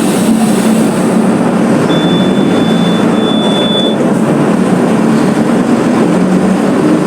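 Mercedes-Benz OF 1721 city bus's diesel engine running as the bus drives, mixed with a steady loud rumble of road and body noise. A thin, high-pitched whine sounds for about two seconds near the middle.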